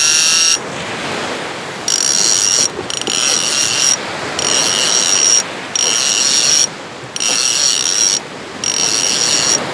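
Conventional big-game reel's drag screaming as a hooked shark runs and strips line against heavy drag. It comes in about six bursts of roughly a second each with short pauses between, over the wash of surf.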